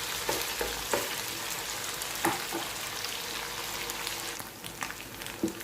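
Marinated fish pieces sizzling as they shallow-fry in hot oil in a pan, with a few short taps and scrapes of a utensil turning the pieces; the sizzle thins a little near the end.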